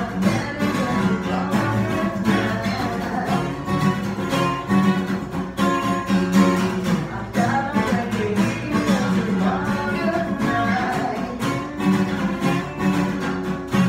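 Two acoustic guitars playing a strummed rhythm part together, with a woman singing over them.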